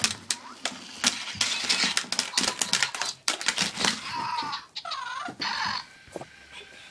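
Zhu Zhu Pets toy hamsters clicking and clattering, with a few short squeaky chirps about four and five seconds in. A faint steady high tone near the end.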